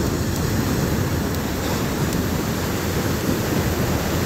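Steady wash of ocean surf breaking on a sandy beach, mixed with wind rumbling on the phone's microphone.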